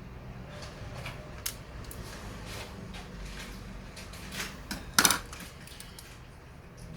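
Small metal clicks and taps of laptop screws and parts being handled on a work surface, with a louder clatter about five seconds in.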